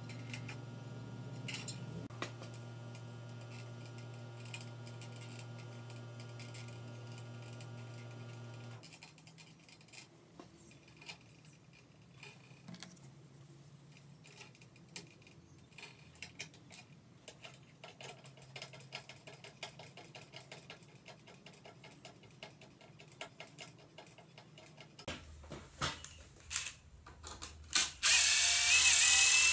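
Small clicks and rattles of electrical wires being handled at a plastic ceiling box, over a steady low hum that stops about a third of the way in. Near the end a cordless drill/driver runs steadily for about a second and a half with a whine, the loudest sound.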